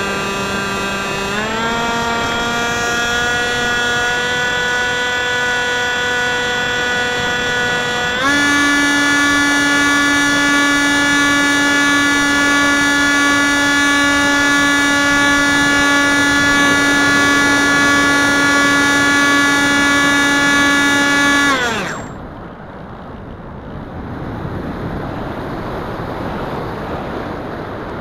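Electric motor and propeller of a Wing Wing Z84 flying wing, recorded by its onboard camera, whining steadily and stepping up in pitch twice as the throttle is opened. About 22 s in the whine falls away and stops as the motor is cut, leaving only wind rushing over the airframe as it glides.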